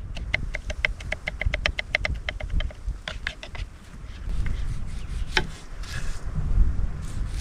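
Knife chopping vegetables on a board in quick, even strokes, about six a second, each tap with a slight ring. The chopping stops about three seconds in, followed by a few scattered knocks.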